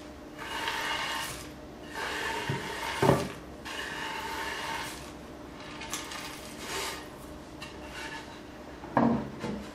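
Chopped pecans being swept by hand off a bamboo cutting board into a glass mixing bowl: several rasping scrapes of hand and nuts over the wood, with a knock about three seconds in and a louder one near the end as the board is moved.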